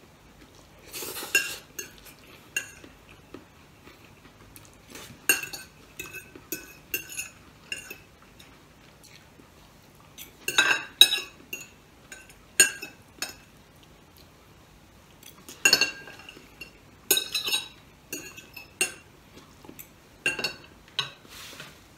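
Metal fork and spoon clinking and scraping against a dinner plate in irregular bursts of sharp, ringing clinks, with quieter pauses between them.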